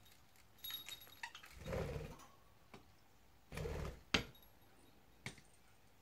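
Small metal bells and plastic toys in a budgie cage jingling and clattering as the budgies climb and move about on them: a light jingle with brief ringing about a second in, two short rustling bursts, then a couple of sharp clicks.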